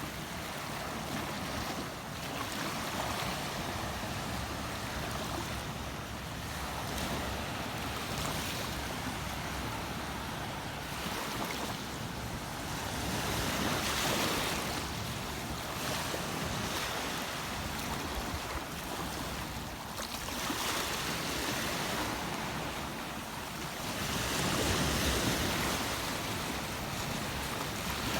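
Steady rush of water, swelling louder twice in slow surges, with some wind on the microphone.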